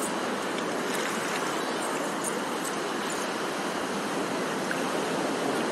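Sea surf washing up a beach: a steady, unbroken rush of water noise.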